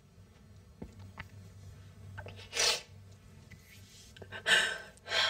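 A woman crying quietly, sniffing and drawing breath through her nose: one sharp sniff about two and a half seconds in, then two shaky breaths near the end.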